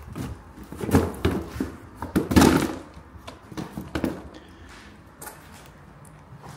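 Footsteps with a few knocks and thuds, the loudest about two and a half seconds in.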